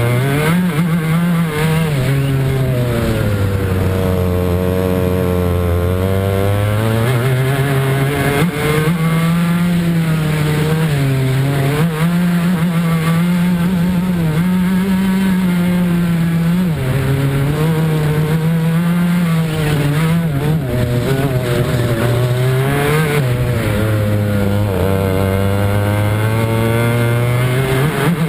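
A Club 100 racing kart's two-stroke engine, heard close up, revs high and drops back again and again as the kart slows for corners and accelerates out of them.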